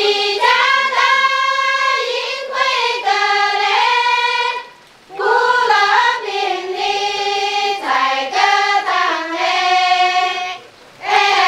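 A group of women singing a traditional Dong road-blocking song in high, sustained voices. Two long phrases, with a short break for breath about halfway through and another near the end.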